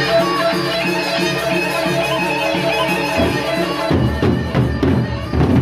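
Gendang beleq ensemble of Lombok playing traditional Sasak music: a steady pitched melody over the first few seconds, then the big gendang beleq barrel drums come in with heavy beats about four seconds in.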